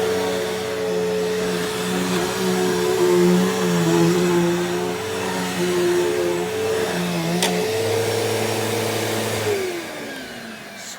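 Upright vacuum cleaner running, its motor hum wavering as the machine is worked. A sharp click comes about seven and a half seconds in. Near the end the vacuum is switched off and the motor winds down in falling pitch.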